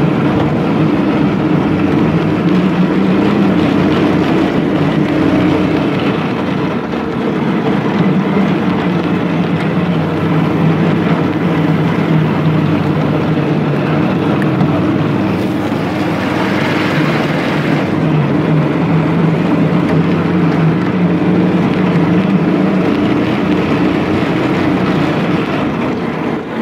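Custom off-road go-kart's engine running steadily as the kart drives slowly over grass and mud. There is a brief rise in hiss about sixteen seconds in.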